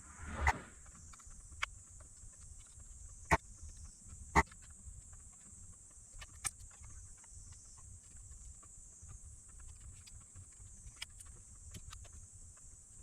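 Workbench handling during electronics repair: a few sharp, separate clicks and taps of tools against parts, the loudest three in the first five seconds, over a steady faint high hiss.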